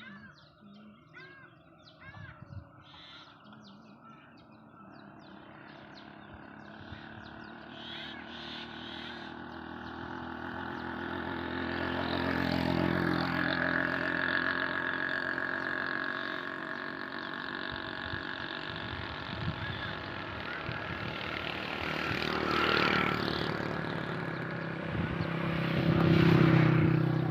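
Birds chirping, then a motor vehicle's engine running steadily and growing louder, drowning out the birds and loudest near the end.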